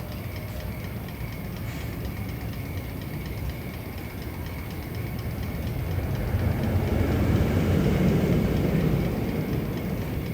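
A steady rumble like a train running on rails. It grows louder about two thirds of the way through, then eases near the end, with a faint high tone held throughout.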